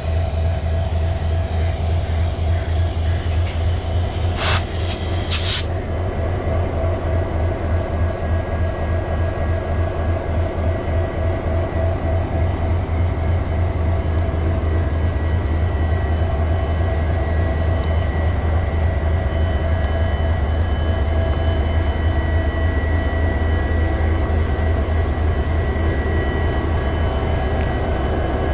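WDG4 diesel-electric locomotive's EMD 16-cylinder two-stroke engine running steadily: a fast-pulsing low rumble under a constant whirring whine. Two short sharp clicks come about four and a half and five and a half seconds in.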